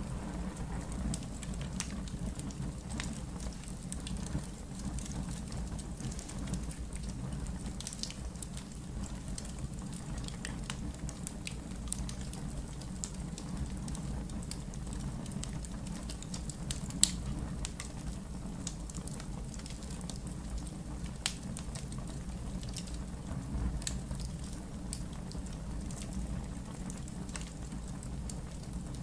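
Wood fire burning in a fireplace: a steady low rumble of flames with scattered crackles and pops of burning logs, the sharpest pop about 17 seconds in.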